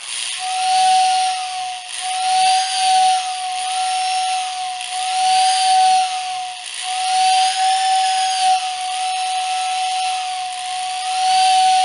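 A Lionel WS-75 pre-war motor-driven toy train whistle sounds one steady whistle tone over a loud whir from its electric motor, with higher overtones wavering up and down every second or so. The motor noise is typical of its old motor with worn bearings, but the whistle tone predominates.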